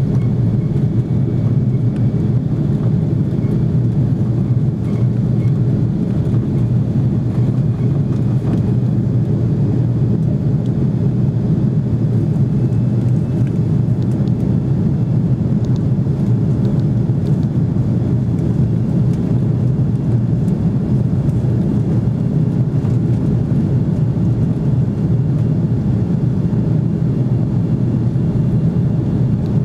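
Steady low drone of the jet engines and airflow heard inside the passenger cabin of an Airbus A330 in flight, unchanging throughout.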